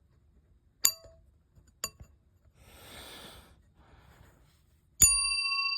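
Edwards 340 fire alarm bell gong tapped lightly twice, a second apart, each giving a short metallic ping. About five seconds in it is struck firmly and rings on with a clear, lingering metallic tone.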